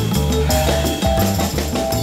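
Instrumental background music with drums and a strong bass line.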